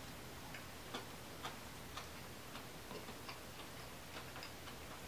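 Faint, soft clicks of chewing and lip smacks, about two a second, uneven in strength.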